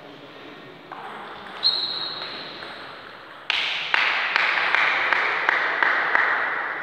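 Table tennis rally: the ball clicking off rackets and table, a few scattered hits at first, then about two to three a second. About three and a half seconds in, a steady hiss comes in suddenly under the clicks.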